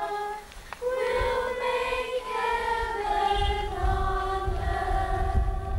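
A choir singing slow, long-held notes, with a short break just under a second in. A low rumble joins underneath about halfway through.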